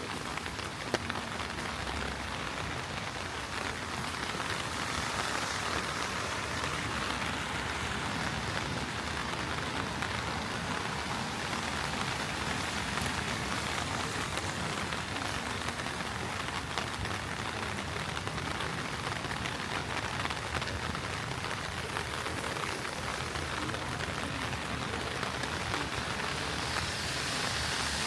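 Heavy rain falling on the street and nearby surfaces: a steady hiss with countless small drop taps, swelling slightly near the end.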